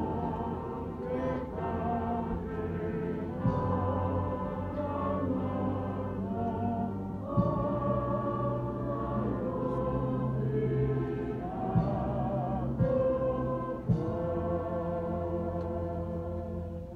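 Choir singing a hymn in several parts, with long held chords that move every second or two over a steady low note. The singing dies away at the very end.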